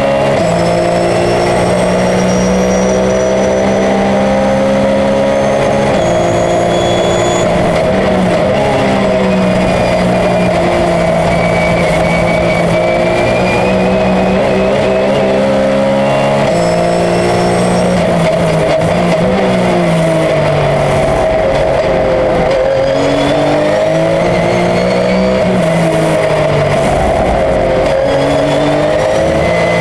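Porsche 911 race car's flat-six engine at racing speed. It revs up through the gears, its pitch dropping sharply at each upshift, and falls away with downshifts as it slows for corners before pulling hard again.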